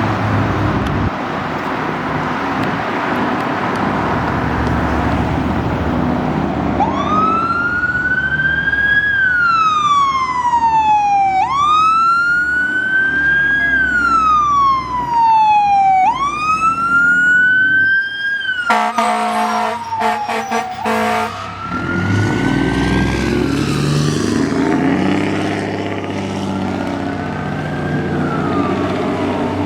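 Fire truck siren on wail, from a 2008 Pierce Dash 2000 aerial ladder truck, with the truck's engine rumble underneath. The siren starts about seven seconds in, sweeping up quickly and falling slowly about every four to five seconds. Its air horn blasts for about three seconds in the middle, with short breaks; after that the wail goes on fainter as the truck moves away.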